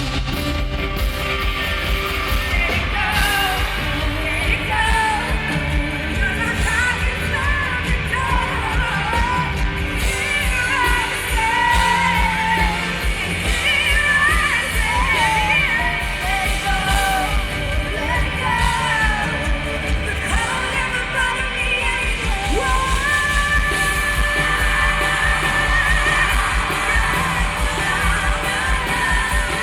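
Pop song with a lead vocal singing a bending melody over a band with a steady low beat, holding one long high note in the last few seconds.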